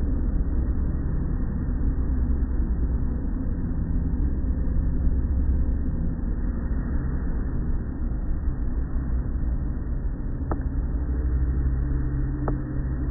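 Automatic tunnel car wash working over the car, heard from inside the cabin: a steady low rumble of the machinery, with cloth mitter strips and water sweeping the body. Two short clicks come near the end.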